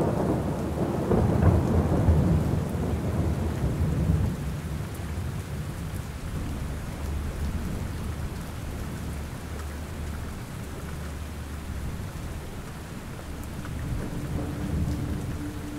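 Steady rain falling, with a long low roll of thunder over the first few seconds that fades back into the rain.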